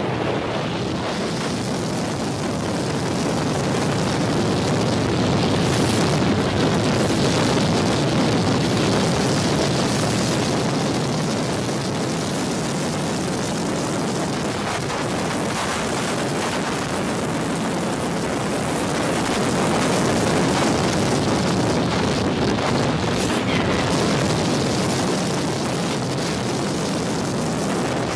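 Drift cars' engines and tyres, a steady, dense noise with wind buffeting the microphone.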